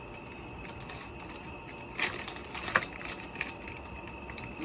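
Crinkling and rustling of MRE plastic and cardboard packaging being handled, with two sharper crackles about two seconds and just under three seconds in, over a steady background hiss.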